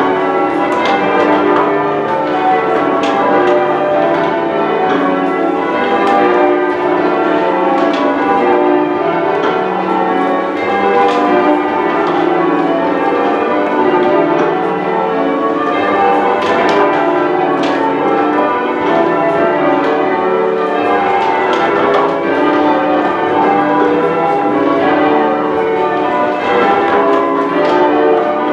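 Manchester Cathedral's ring of ten church bells being rung in changes: a steady, loud stream of overlapping bell strikes, each one ringing on into the next.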